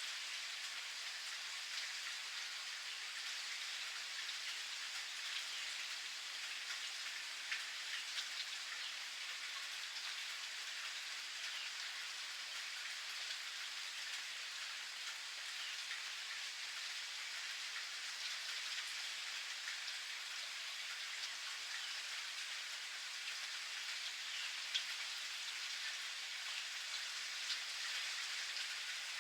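Steady rain pattering, with a few single louder drop hits standing out now and then.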